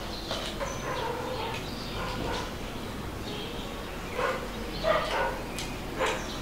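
A dog barking a few short times, about four seconds in, twice around five seconds, and once more near the end.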